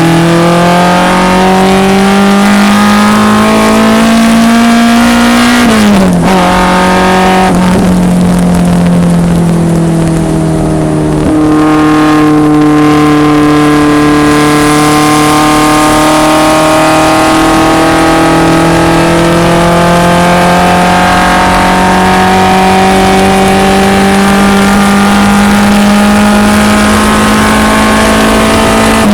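1974 BMW 2002 race car's four-cylinder engine pulling hard under load. Revs climb, then drop sharply in a quick upshift about six seconds in. Revs sag slightly with a brief lift around eleven seconds, then rise slowly and steadily through a long pull.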